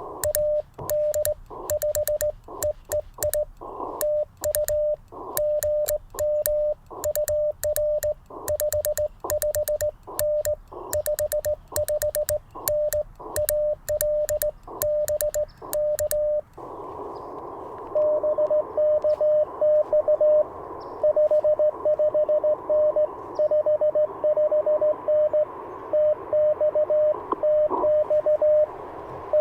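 Morse code from a ham transceiver at about 600 Hz, sent by hand on a cootie (sideswiper) key, a sharp click on each dot and dash. About 16 seconds in, band hiss rises and an answering station's Morse comes through the receiver, slightly higher in pitch.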